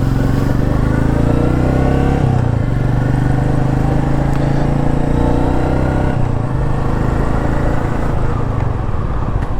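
Royal Enfield motorcycle engine pulling away and accelerating, its pitch climbing, with a drop in revs about two seconds in and again about six seconds in as it shifts up through the gears.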